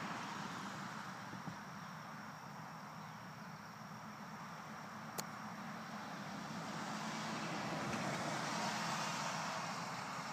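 A golf club striking a ball: one sharp click about five seconds in, over steady outdoor background noise that swells again later on.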